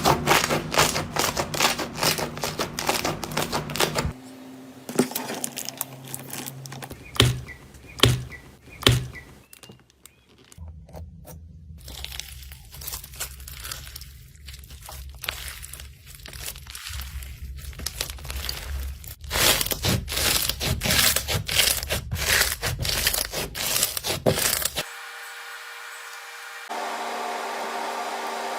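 Slime being squeezed, stretched and poked in a run of short clips: crackling, popping clicks and crinkling, cutting abruptly from one clip to the next every few seconds. Near the end a steady hum comes in.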